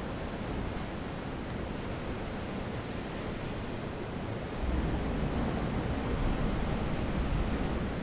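Ocean surf breaking at the mouth of a sea cave, heard from inside the rock tunnel as a steady roar of rushing water. It swells with a deeper rumble a little over halfway through.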